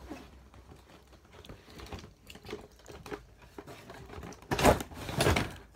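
Cardboard box with a clear plastic window being handled and opened: faint taps and rustles, then two louder scraping, crinkling sounds near the end.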